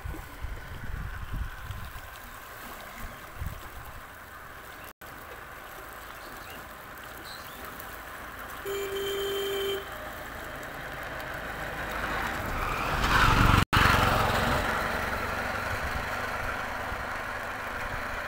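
Vehicles passing: a horn sounds once for about a second, then a vehicle goes by close and grows loud before the sound cuts to steady engine noise. Wind gusts buffet the microphone at the start.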